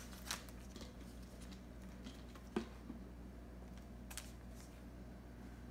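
A few light clicks and taps from trading cards being handled, the loudest about two and a half seconds in, over a steady low hum.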